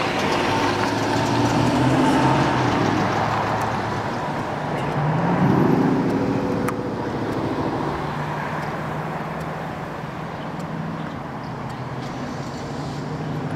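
Jet engines of a Boeing 737 airliner on approach with gear down, a loud steady noise that slowly fades as the aircraft passes overhead and recedes, with a tone rising in pitch about five seconds in.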